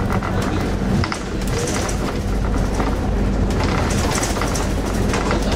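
Bus on the move, heard from inside the cabin. A steady engine drone and low road rumble run throughout, with frequent light rattles and clicks.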